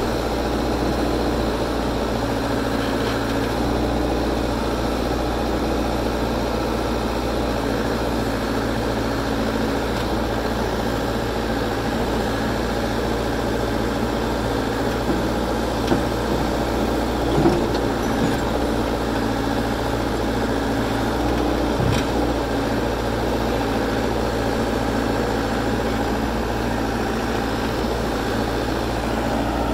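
Backhoe's diesel engine running steadily as the boom and bucket are swung, its pitch shifting slightly a couple of times, with a few short clunks in the second half.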